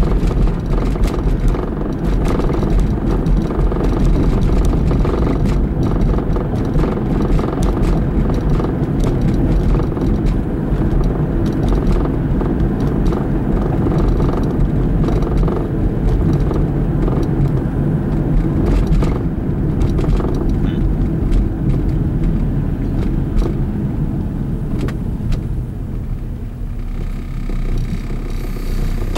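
Steady road and engine rumble inside a moving car's cabin. It eases off near the end as the car slows to a stop.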